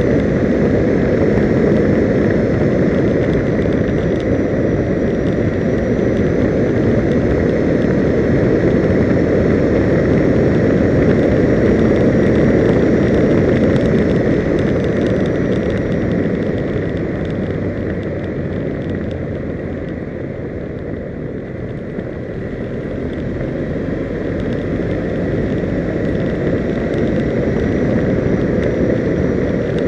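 Wind rushing over the microphone of a camera riding along at road speed, mixed with the vehicle's running and tyre noise, with a faint steady whine. It eases off for a few seconds past the middle and then builds again.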